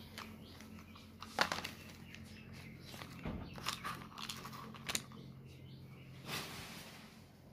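Plastic toys being handled and moved about, giving a few scattered light clicks and knocks, over a steady low hum that stops near the end.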